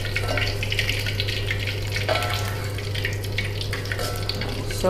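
Shallots, garlic and chilies frying in hot oil in a wok: an even, crackling sizzle over a steady low hum.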